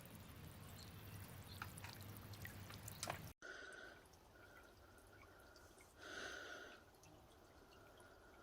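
Faint dripping and splashing of water falling back into a bird bath from a small floating solar fountain pump's spray. About three seconds in the sound cuts off abruptly and it goes quieter.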